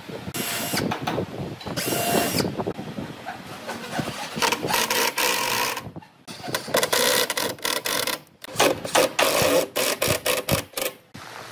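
Hitachi cordless impact driver driving screws into pine boards in several runs. The later runs are short bursts, one after another.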